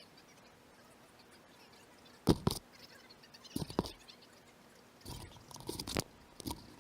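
A few irregular, muffled knocks and clanks, as of tools and parts being handled during exhaust work under a car. The loudest is a pair about two seconds in, with a cluster near the end. The sound is dulled by a waterproof camera case.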